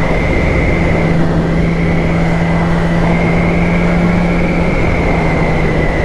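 Wind rush while riding a 2008 Yamaha R6 at about 60 mph, under the steady drone of its 600 cc inline-four engine at cruise. Over it runs a steady high whistle from the Shoei helmet, which whistles at that speed.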